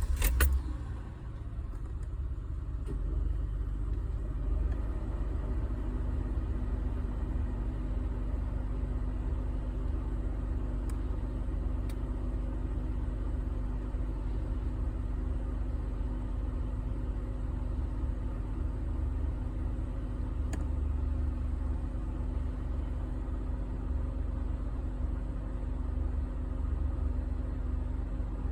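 2007 Honda Ridgeline's 3.5-litre V6 running unevenly at idle just after a cold start, a low uneven rumble that pulses irregularly: the engine is misfiring, which happens only on the first start-up when cold.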